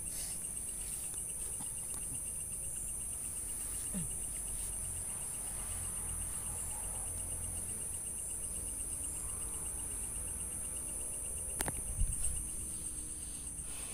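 Crickets and other night insects trilling steadily: a high continuous shrill with a fast, even pulsing chirp beneath it. A single sharp knock sounds near the end.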